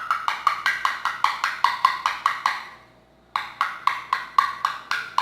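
Rapid, regular knocking of a small gouache paint pot being tapped to get thick paint that won't pour out, about six knocks a second, with a short pause about three seconds in.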